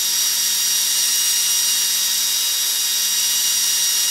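Corded electric drill running steadily at full speed with a steady motor whine. It spins a small oak wheel mounted on a dowel while 220-grit sandpaper is held against the wheel's edge.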